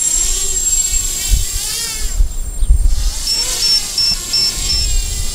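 EMAX NightHawk Pro 280 racing quadcopter's motors and propellers whining, the pitch rising and falling with the throttle as it climbs hard, with wind rumble on the microphone. About two-thirds in, its low-voltage alarm beeps five times in quick succession: the battery voltage is sagging under full throttle.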